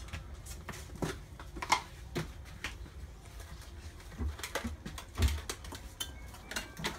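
Scattered light clicks and knocks of dishes and utensils being handled, with two dull thumps a little past the middle.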